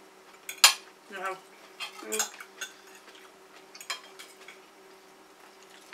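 Metal knife and fork clinking and scraping against a plate while salad is cut up, with a sharp clink about half a second in and a few more further on.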